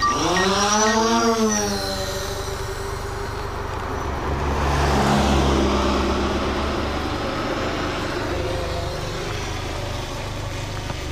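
Road traffic going past. A vehicle's engine note rises and falls over the first couple of seconds, then a louder passing vehicle swells and peaks about five seconds in with a low rumble and tyre noise, and fades away.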